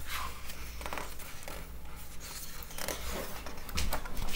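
Paper rustling as a picture book is handled and a page is turned, the loudest rustle near the end, over a steady low hum.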